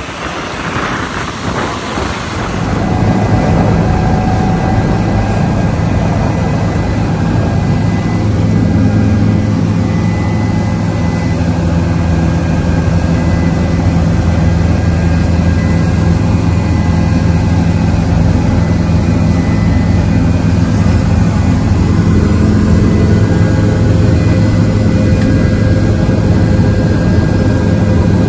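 Helicopter in flight heard from inside the cabin: a steady, loud drone of turbine engine and rotors with a low hum and a faint high whine. About three seconds in, it steps up from a rougher, uneven rush to this steady cabin noise.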